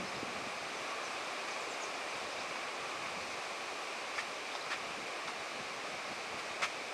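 Steady wind noise on the microphone, with a few light short taps in the second half.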